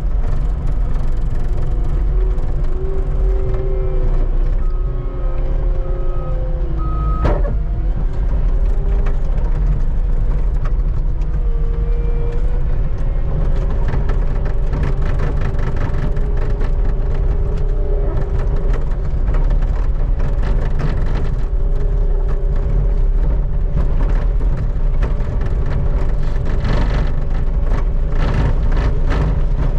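Skid steer engine running steadily and heavily. Three short high beeps sound about five to seven seconds in, with a sharp knock just after them, and there is a stretch of clatter near the end.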